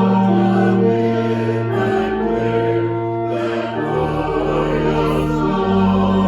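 Slow sacred music of held chords that change every second or two, with a deep bass note coming in about four seconds in.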